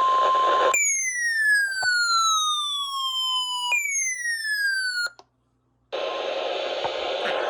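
A weather-radio broadcast: a steady alert tone over static hiss, cut off under a second in by an electronic siren tone. The siren falls in pitch over about three seconds, jumps back up and falls again, then stops abruptly. After about a second of dead silence the static returns.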